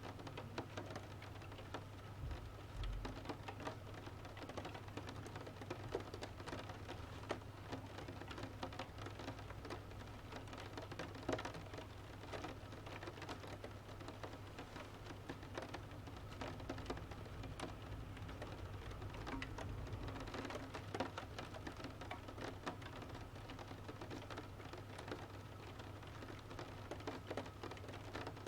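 Rain falling on a window, with a wood fire in a stove crackling: many irregular sharp pops and snaps over the steady hiss of the rain, and a low steady hum underneath.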